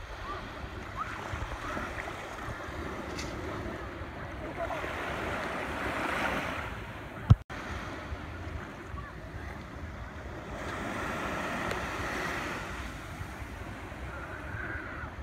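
Surf washing on a beach, the rushing noise swelling and fading twice, with wind buffeting the phone's microphone. There is a sharp click about seven seconds in.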